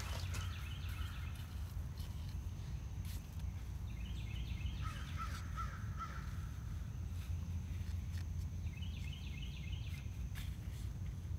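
A crow cawing in three runs of short repeated calls, over a steady low outdoor rumble. A few faint clicks from hands working in the soil.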